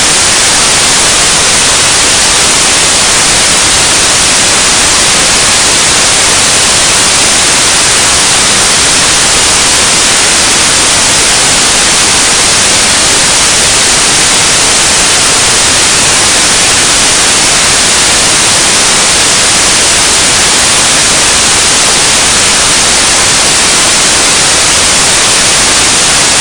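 Loud, steady static hiss like white noise, unchanging throughout, with no voice or music in it.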